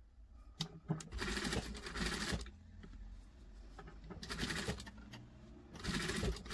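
SunStar industrial single-needle sewing machine running in bursts, stopping and starting with short pauses between, as it topstitches a folded knit seam.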